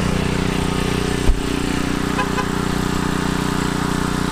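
A small portable generator engine running steadily at a constant pitch, powering a traffic light. There is a single thump about a second in.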